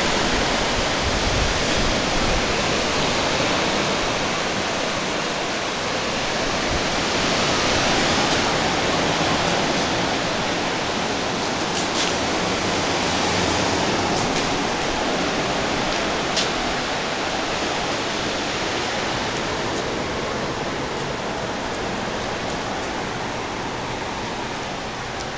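Steady rushing noise of surf breaking on the beach, mixed with wind, easing off somewhat over the last few seconds.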